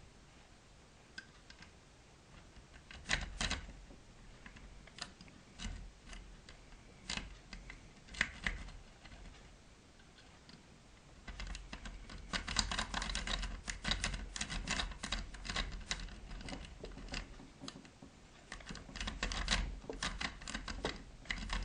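Steel Bogota rake and tension wrench clicking and scraping against the pins inside an Abus Diskus 24 padlock's keyway. A few scattered clicks first, then from about halfway through a fast, continuous run of clicking as the rake is worked in and out over the pins, with a brief lull near the end.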